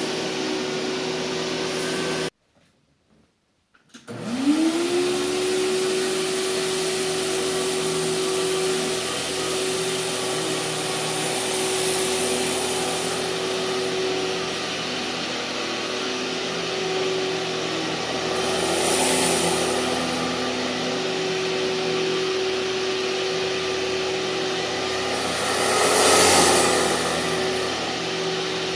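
A 2003 Hoover TurboPower 5000 canister vacuum running with a steady motor whine and rushing air. It cuts out abruptly about two seconds in, then spins back up with a rising whine and runs on steadily, with a few brief swells of hissing airflow.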